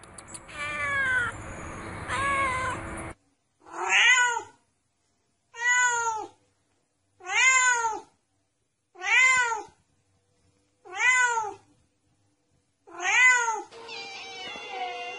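Domestic cat meowing over and over, each meow rising then falling in pitch. Two meows come over a light background hiss, then six alike meows about every two seconds with silence between, then softer meows near the end.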